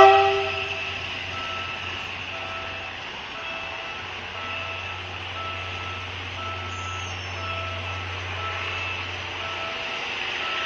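The tail of a PNR diesel train's horn fades out in the first half second. The train's engine then runs with a steady low hum, while a faint warning beep repeats about every two-thirds of a second.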